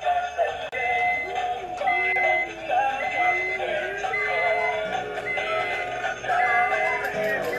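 Upbeat background music: a synth melody over a steady beat, with a short high note repeating about once a second.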